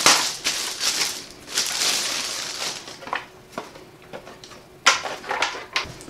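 Plastic wrapping crinkling and rustling as monitor stand parts are handled and lifted out of their styrofoam packing, with a few sharp knocks about five seconds in.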